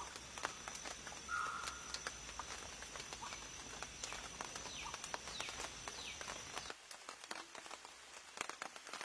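Forest ambience: scattered sharp ticks, a few short falling chirps and a steady high thin tone. The tone and a low hum cut off suddenly about seven seconds in.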